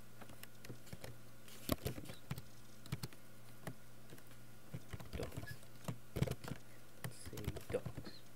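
Computer keyboard typing: irregular clusters of key clicks with pauses between them, over a steady low hum.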